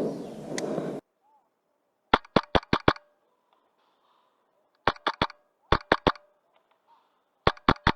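Wolverine MTW HPA airsoft rifle firing in quick strings of sharp shots: five, then three, four and three, each string a rapid burst of several shots a second.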